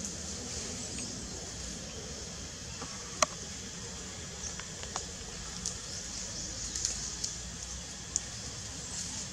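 Steady outdoor hiss with a few short, sharp crackles of dry leaves as a macaque mother and her newborn shift on the leaf litter; the loudest crackle comes about three seconds in.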